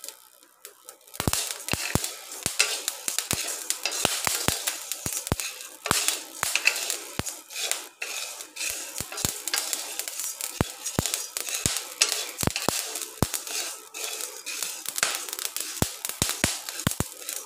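Rock salt crystals crackling and popping in a hot kadai as they dry-roast, with sharp, irregular pops, stirred and scraped with a wooden spatula. The popping is the crackling stage that the salt is roasted to.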